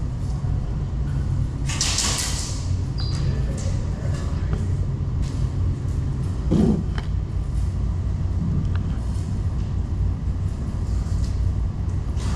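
Steady low rumble in a large indoor hall, with a short rush of noise about two seconds in and a dull thump a little past the middle.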